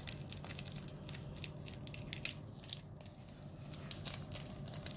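Plastic seasoning sachet from an instant noodle bowl being torn open and crinkled by hand: a run of short, irregular crackles.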